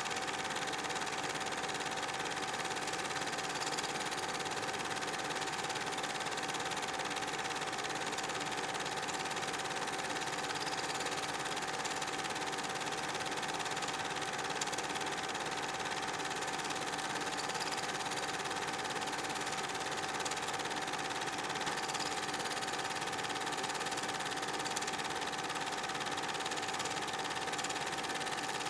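Cine film projector running: a steady whirring with a high whine and the fast, even clatter of its film-advance mechanism.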